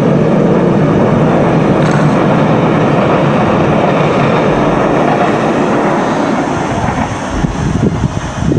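Passing train, a loud steady rumble of rolling noise that eases off near the end.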